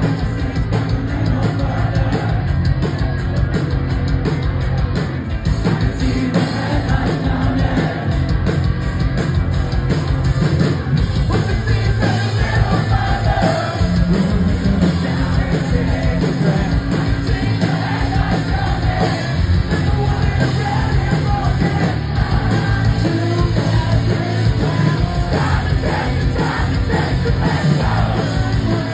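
Post-hardcore band playing live at full volume: electric guitars, bass and drums under sung and yelled lead vocals.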